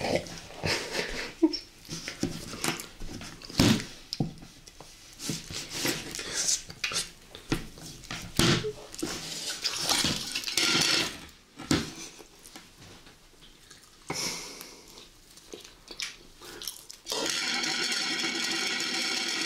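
Wet slurping, sucking and smacking of people eating jelly straight from bowls with their mouths, busy at first and sparser later. Near the end a steady buzzing tone comes in and holds for about two seconds.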